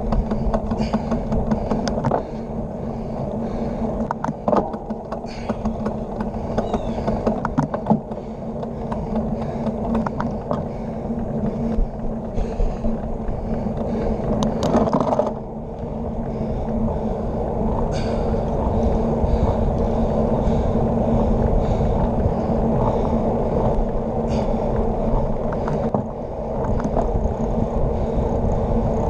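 Road bike rolling at speed on wet pavement: steady tyre and wind noise on the handlebar-mounted camera, with scattered sharp rattles and knocks as the bike goes over bumps and cracks in the road.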